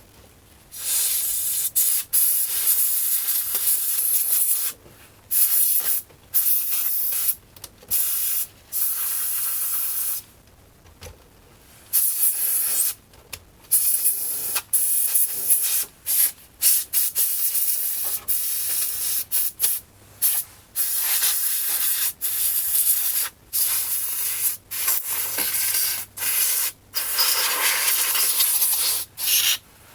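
Can of compressed air duster with its red straw sprayed in many short and longer bursts of loud hiss, blowing dust out of the circuitry of an opened boombox.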